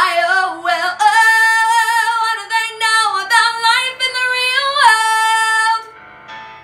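A woman singing the closing phrase of a musical theatre song, holding one long high note from about a second in until it stops near the end.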